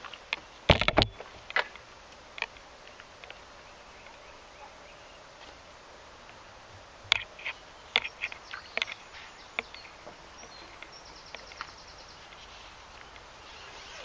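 Handling noise as a fishing pole is moved out over the water: a heavy knock about a second in, then scattered clicks and taps, over a faint outdoor hiss.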